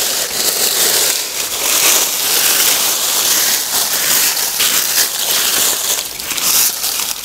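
Dry fallen leaves rustling and crunching as they are scraped away by hand from the base of a shrub, in an irregular, continuous crackle.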